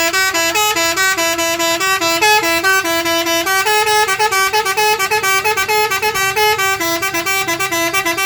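Indonesian bus 'telolet' horn, a multi-tone musical air horn, playing loud and continuously, hopping quickly between two or three notes in a warbling tune.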